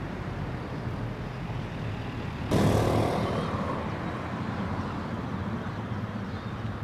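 Road traffic at a city intersection: a steady low rumble of cars, with a vehicle passing close about two and a half seconds in. Its tyre and engine noise comes in suddenly, loud, then fades away.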